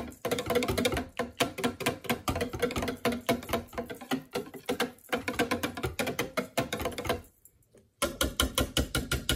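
Wire whisk stirring soap batter in a plastic container, its wires clicking and rattling against the sides in a quick run of strokes. The clicking stops for under a second about seven seconds in, then starts again in a denser burst.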